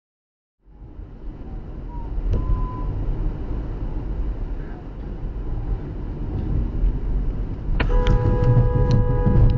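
Low road and engine rumble from a moving car starts a moment in. Near the end a vehicle horn sounds in one long steady blast.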